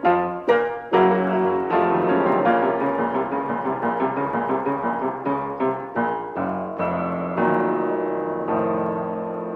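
Solo piano music in the style of a silent-film accompaniment: quick, separate notes in the first second, then a fuller, flowing passage.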